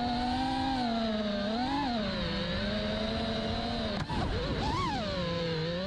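5-inch FPV freestyle quadcopter's motors and propellers whining, the pitch swooping up and back down with throttle punches about two seconds in and again near five seconds, with a sharp click and a brief warble about four seconds in.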